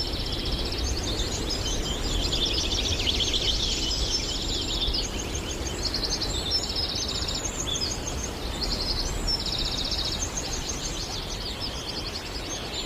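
Woodland birds singing, with short high trilled phrases repeating one after another, over a steady low rumble.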